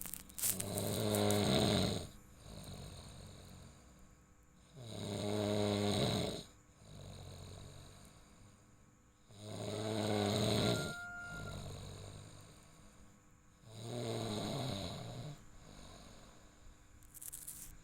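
A person snoring in a deep sleep: four loud snores, one about every four seconds, with quieter breathing between them.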